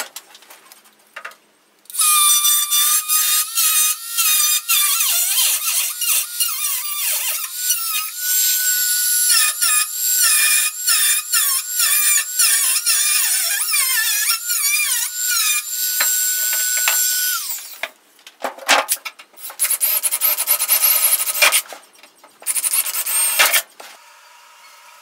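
High-speed rotary cutting tool whining as it cuts the radio opening into a 1963 Chevy C10's sheet-steel dash panel, its pitch dipping each time it bites into the metal. It starts about two seconds in and runs in many short stop-start runs, with a few shorter bursts near the end.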